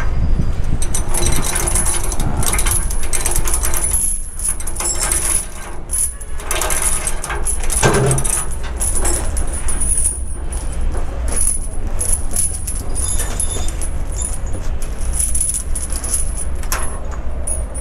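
Half-inch steel lashing chains clinking and rattling as they are pulled and hooked over an excavator's track frames to lash it down, many short metallic clinks over a steady low rumble.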